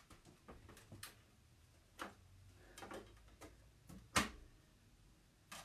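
A handful of light, irregular clicks and knocks, roughly one a second, the loudest about four seconds in: small handling noises in a quiet room.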